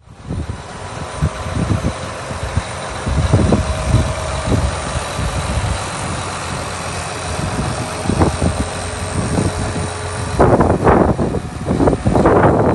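John Deere 8R-series tractor's diesel engine idling with a steady low rumble and a faint steady whine. From about ten seconds in come uneven, louder rumbles.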